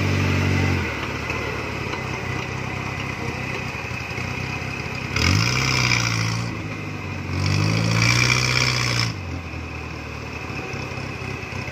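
Modified Suzuki Jimny off-road vehicle's engine running at low revs, then revved hard twice as it drives up a dirt track. The first rev comes about five seconds in and the second about seven and a half seconds in; each rises quickly in pitch and is held for a second or two.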